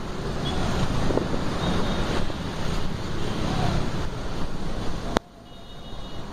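Steady vehicle engine rumble mixed with wind buffeting the microphone. A sharp click comes about five seconds in, after which the sound is quieter.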